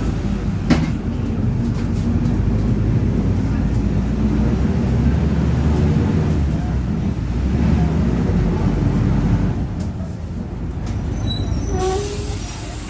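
Mercedes-Benz OF-1721 BlueTec5 city bus heard from inside while driving: the diesel engine and drivetrain run steadily, with the rear differential growling. There is a sharp click about a second in, and the sound drops about ten seconds in as the bus eases off.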